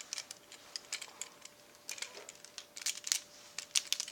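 Irregular clicks and rattles of the hard plastic parts of a Transformers MechTech Ratchet action figure being twisted and folded by hand, with a cluster of quicker clicks near the end.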